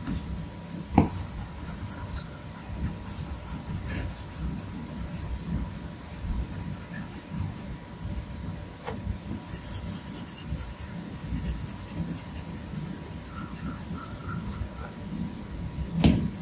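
Apple Pencil tip tapping and stroking across the glass screen of an iPad Pro: soft scratchy strokes with a few sharp taps, the loudest about a second in and another near the end.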